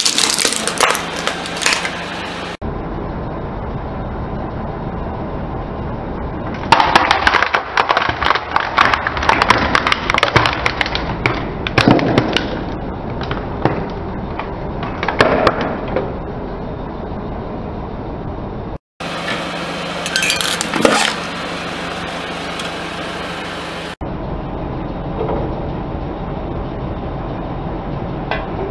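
Plastic objects cracking and snapping under a slowly rolling car tyre on concrete, in dense bursts of crackling over steady background noise. The sound is cut into several short clips.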